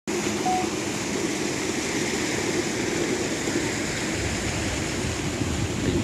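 Steady rushing of a stream's flowing water, with a low rumble coming in about two-thirds of the way through.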